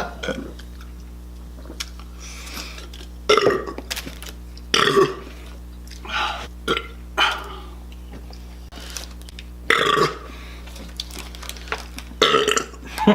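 A man belching repeatedly from an overfull stomach during a burger-eating challenge, several loud burps a few seconds apart with smaller ones between, over a steady low hum.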